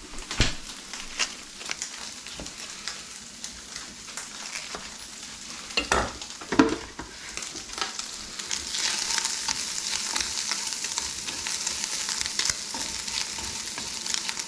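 Bacon sizzling as it renders in a frying pan, with a few knocks and scrapes of a utensil stirring it. The sizzle grows denser about halfway through.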